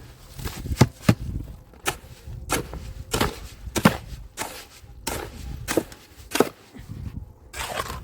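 A series of sharp knocks or strikes, about one every half-second to second, some louder than others.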